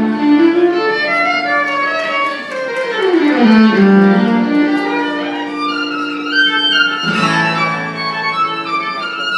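Live acoustic string-band music: a fiddle plays the melody over guitar, with a long downward slide about three seconds in.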